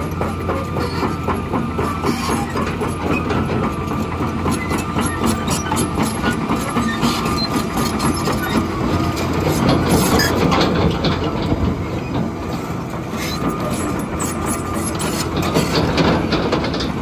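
John Deere 350D LC hydraulic excavator's diesel engine running under load, with a continuous metallic clatter of its steel track chains as the machine travels.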